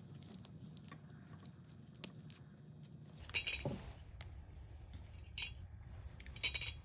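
Light metallic clicks and clinks of Ford 2N carburetor parts being handled as the brass float is fitted back on its hinge pin, with a few sharper clicks in the second half.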